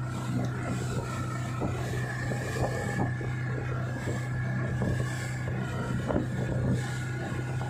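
Outboard motor of a tow boat running steadily at speed, with water splashing and slapping in the wake.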